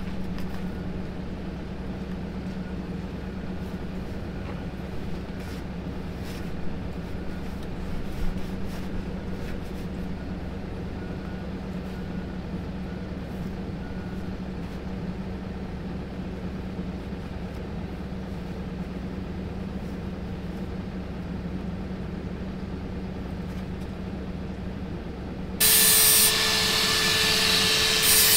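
Honda portable generator running with a steady hum, with a few faint knocks of hand work on the pipe in the pit. Near the end a much louder rasping tool noise starts, then stops and starts again a few times.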